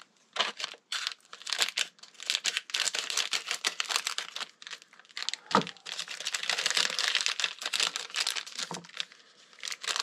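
Thin plastic packaging from a brake caliper rebuild kit crinkling as it is handled and opened, an irregular run of crackles, with one sharper knock about halfway through.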